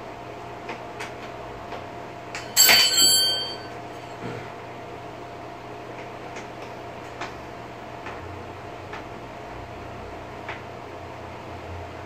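Faint clicks and handling noise from assembling a backpack blower's plastic tube with a small hand tool, over a steady low hum. About two and a half seconds in comes one loud metallic clink that rings for about a second.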